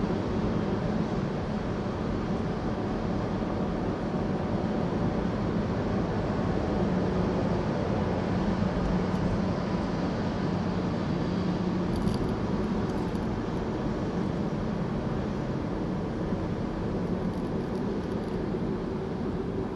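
Car cruising at highway speed: steady road and engine noise with a low hum.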